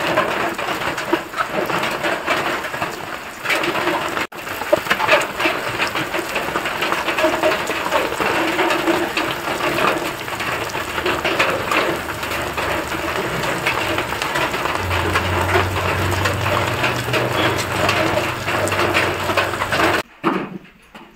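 Masala-coated sardines sizzling in oil on a flat griddle pan, a dense steady crackle with a low hum under it in the last few seconds; it cuts off abruptly about twenty seconds in.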